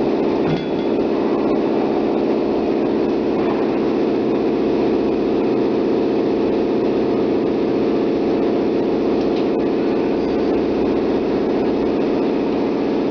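MetalMaster PT 330 metal-cutting band saw running with a steady drone while working in manual mode.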